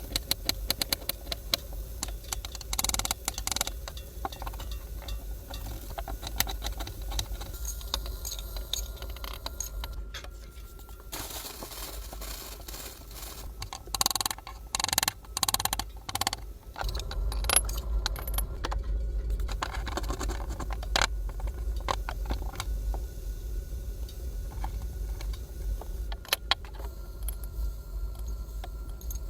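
Kitchen handling sounds: metal utensils and cookware clinking, rattling and scraping in irregular short knocks, over a steady low hum.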